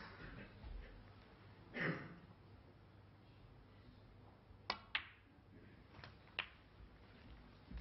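Snooker balls clicking in a hushed arena. There is a sharp double click, the cue tip striking the cue ball and the cue ball hitting the black a quarter-second later, then two softer knocks about a second after.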